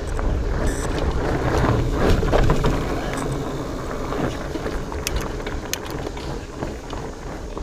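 Specialized Fatboy fat bike rolling over rough trail, with a steady low rolling noise, scattered clicks and rattles, and wind on the microphone. It is loudest about two seconds in.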